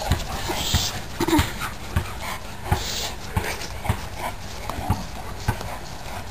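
Dogs panting as they run and play, with irregular dull thumps and a short whine about a second in.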